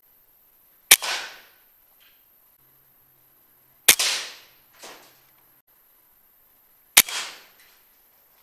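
Three shots from a PCP air rifle, about three seconds apart, each a sharp crack with a short echoing tail. A fainter knock follows each shot under a second later.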